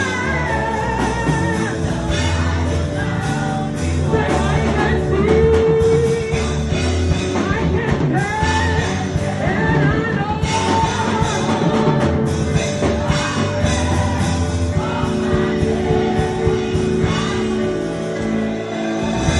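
Worship singing with band accompaniment: voices sing a slow melody over a steady bass line and sustained chords.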